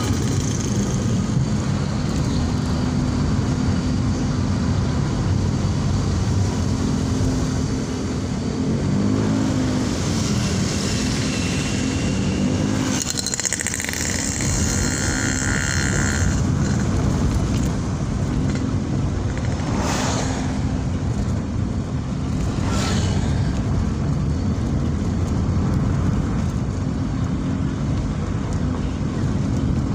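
Daihatsu Ayla's 1.0-litre three-cylinder engine and tyre noise heard inside the car's cabin while driving, the engine pitch rising and falling with speed. A brief higher-pitched sound about halfway through, and two sharp knocks about three seconds apart later on.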